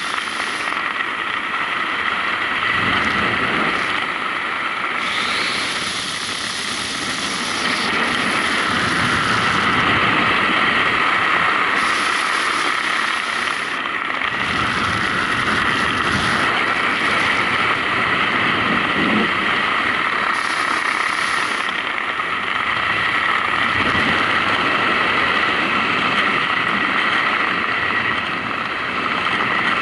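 Steady wind rushing over the camera's microphone during a descent under an open parachute canopy, swelling and easing slightly.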